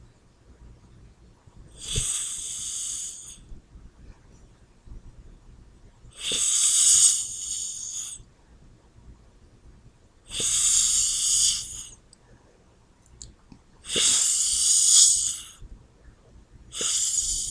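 A sleeping person snoring: four hissing, wheezy snores about four seconds apart, each lasting a second and a half to two seconds and starting with a sudden catch, and a fifth beginning near the end. The uploader puts the snoring down to sleep apnea.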